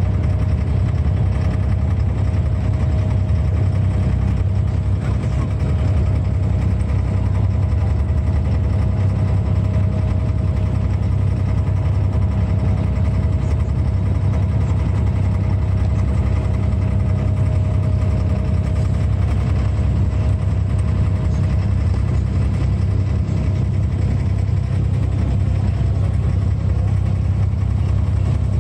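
Wooden abra water taxi's inboard diesel engine running steadily underway, a constant low drone.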